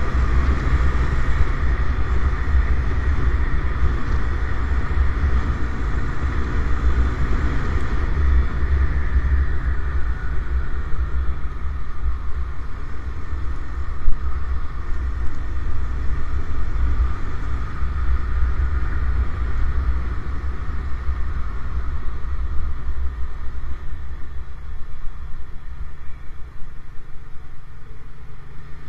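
Motorcycle riding noise: the engine running steadily under heavy wind rumble and road noise, with one sharp knock about 14 seconds in.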